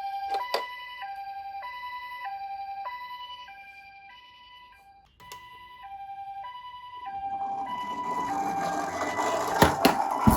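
Toy ambulance minicar's electronic two-tone siren, alternating steadily between a higher and a lower pitch; it fades, stops with a click about five seconds in, then starts again. From about seven seconds a rising rattling noise of the toy rolling down a slope builds under it, ending in a few sharp clacks near the end.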